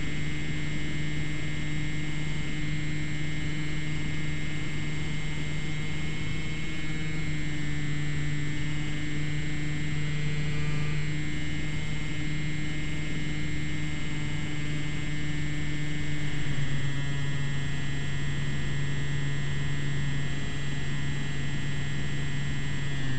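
Electric motor and propeller of a Slowstick RC plane running steadily in flight: a steady drone with a higher whine, its pitch shifting slightly about six seconds in and again about sixteen seconds in.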